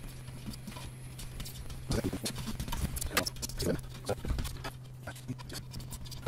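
Fingers rubbing and scraping old adhesive residue off a 3D printer's heated glass bed, giving irregular squeaks, taps and clicks over a steady low hum.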